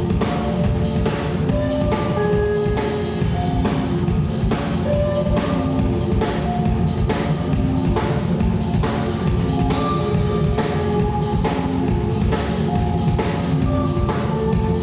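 Loud live rock band: a drum kit keeps a steady beat on bass drum and snare under electric guitar and held notes.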